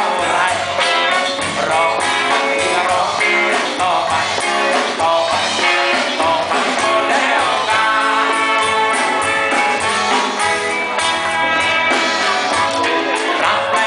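Live band playing a song: guitars, drums and hand percussion, with a lead vocal.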